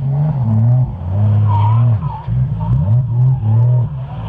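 Drift car engine revving hard in repeated bursts, its pitch swinging up and down with each stab of the throttle, with tyres skidding.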